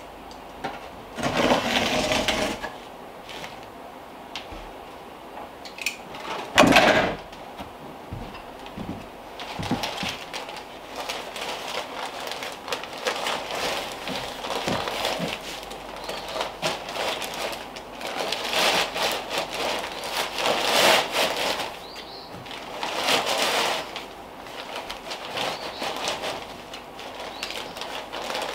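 Fiberglass insulation batts rustling and scraping as they are cut on the floor and pushed into the wall cavities between the studs, with a loud thump about seven seconds in.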